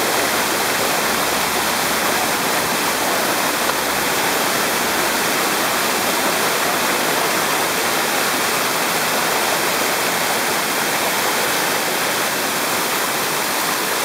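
Waterfall cascading over rock terraces, heard close up: a steady, loud rush of white water.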